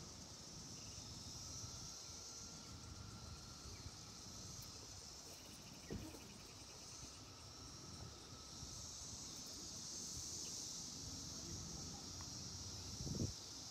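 Faint, steady high-pitched drone of an insect chorus, with a soft click about six seconds in and a low thump near the end.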